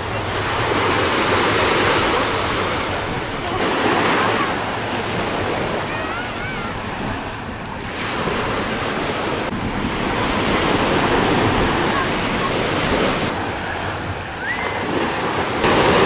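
Sea surf washing onto a sandy beach, a steady swelling rush of water noise with wind on the microphone and faint voices of people in the water.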